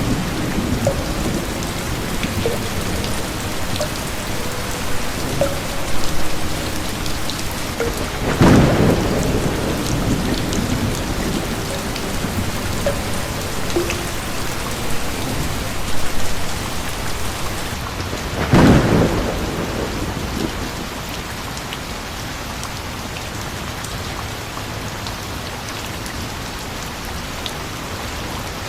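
Steady rain with thunder: two loud cracks of thunder, about a third and two-thirds of the way through, each fading off over a second or two. The rain pours on, a little softer near the end.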